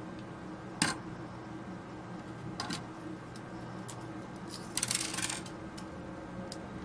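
Small metal parts clicking and clinking as they are handled and set down on a hard surface: a sharp click about a second in, a couple of lighter clicks, then a short jingling cluster of clinks around five seconds in.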